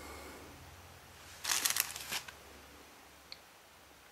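A brief crinkle of a plastic bag being handled, lasting under a second, about one and a half seconds in.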